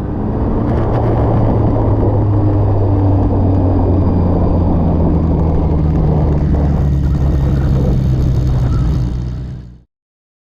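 Kawasaki Ninja ZX-10R's inline-four engine running steadily through an Akrapovič carbon exhaust, then cutting off abruptly near the end.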